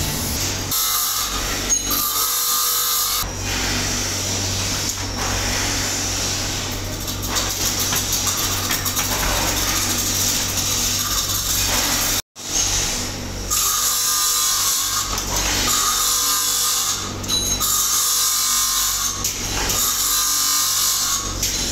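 Workshop machinery running steadily, a power tool's continuous noise over a low hum, cutting out for an instant about twelve seconds in.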